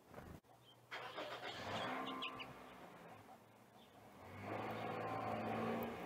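Two cars passing by, one about a second in and a louder one swelling up from about four seconds in, each a wash of tyre noise over a steady engine hum. A short flutter at the very start as a small bird takes off from the feeder, and a few faint chirps.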